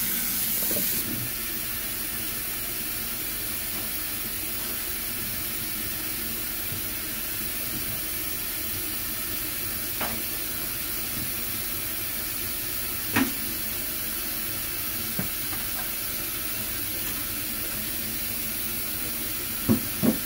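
Cold water running steadily from a kitchen tap into a plugged stainless-steel sink as it fills, a constant hiss and splash. A few short knocks come through it, about ten and thirteen seconds in and twice near the end.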